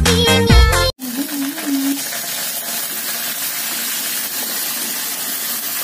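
Dance music cutting off abruptly about a second in, then a steady hiss at the gas stove as wet water spinach is tipped from a plastic bag into a wok.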